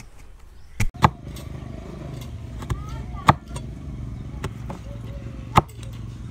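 Cleaver chopping slices of elephant apple on a wooden cutting board: four sharp chops, two close together about a second in, then one at about three seconds and one at about five and a half seconds. Under the chops runs a steady low hum.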